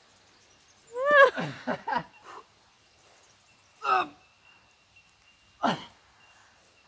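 A person's short wordless exclamations, three bursts spaced a couple of seconds apart, each falling in pitch; the first is the longest and loudest.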